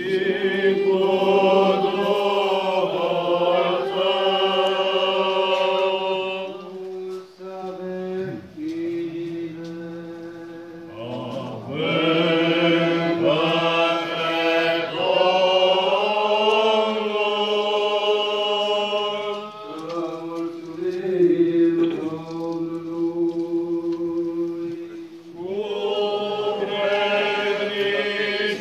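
Orthodox Byzantine-style liturgical chant: voices sing a moving melody over a steady held drone note (ison). The melody drops out twice, leaving mainly the held note, before it resumes.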